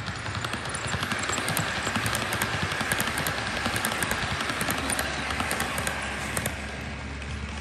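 HO-gauge model electric train running past close by: a steady low motor hum with many small wheel clicks over the track, louder as the cars go by in the middle.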